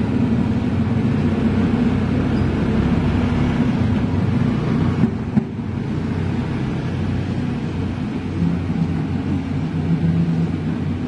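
Volvo EC210B excavator's diesel engine running steadily as the machine tracks along the road. A motorbike passes close by about halfway through.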